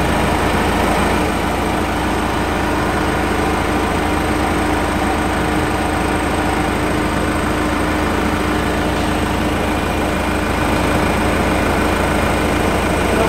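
Sandvik DS311 mining rig running at a steady idle: a constant, even engine drone with a steady hum, while the cab air conditioning is running in normal cycling.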